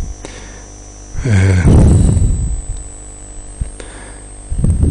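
Steady electrical mains hum, a low buzz with its even overtones, from the recording setup. About a second in, a louder pitched sound lasts about a second, and a shorter one comes near the end.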